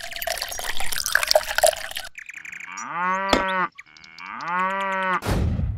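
Water trickling from a drinking straw into a small plastic bottle-cap trough for about two seconds. Then comes a cow mooing twice, two long calls that rise and fall in pitch. A short, loud burst of noise follows just before the end.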